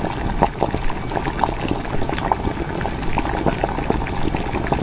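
Bak kut teh pork-rib soup boiling in its bowl over a metal burner stand: a steady dense run of small bubbling pops and gurgles.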